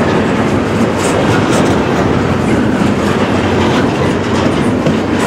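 A loaded freight train's cars rolling past close by: a steady rumble of steel wheels on rail with clickety-clack over the rail joints.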